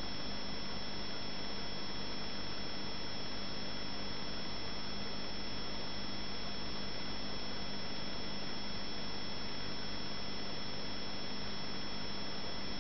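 Home aquarium running: a steady hiss of air bubbles rising through the tank over a constant hum from the tank equipment.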